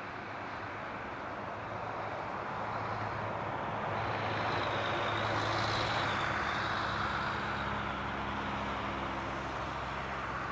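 Airbus A380's Rolls-Royce Trent 900 jet engines passing by: a rushing jet noise swells to a peak about halfway through and then eases, with a high whine that bends slightly in pitch as it goes past, over a steady low hum.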